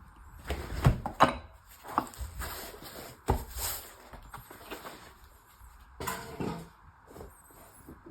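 Tools and their case being handled in a tool bag: a series of irregular knocks and clatters with rustling in between.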